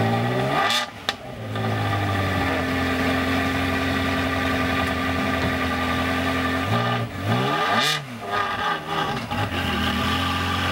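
Ferrari 360 Spider's V8 idling, blipped twice: about a second in and again about seven seconds in, the revs rise and fall back to a steady idle.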